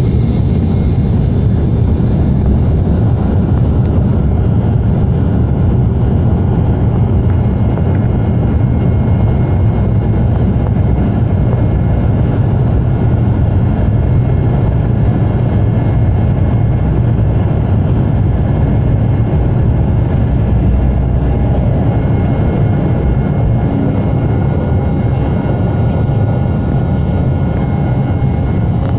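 An airliner's engines at takeoff power heard from inside the cabin, a loud steady rumble with a faint whine, as the plane races down the runway and lifts off.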